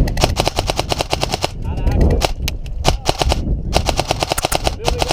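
Airsoft rifle firing rapid full-auto bursts: one long burst over the first second and a half, then more bursts from about two seconds in, broken by short pauses.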